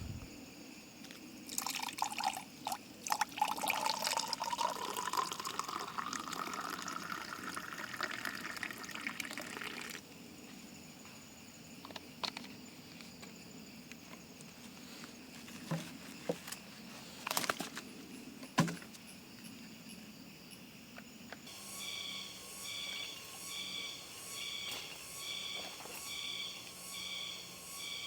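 Water poured into a container, its pitch rising steadily as the container fills, with a few clicks and knocks afterwards. Near the end an evenly pulsing chirp sets in, about two pulses a second.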